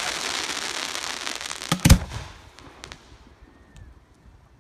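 Aerial fireworks: a dense crackle from bursting shells fading away over the first couple of seconds, two sharp bangs a little under two seconds in, then a few faint pops.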